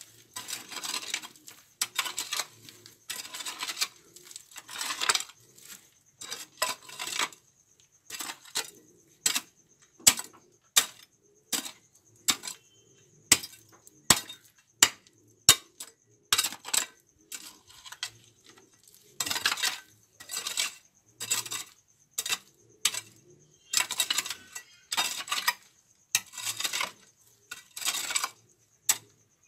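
A metal hoe chopping and scraping into dry, stony soil in repeated strokes, about one a second, each a sharp clink of the blade on grit and stones, with some longer scraping pulls in between.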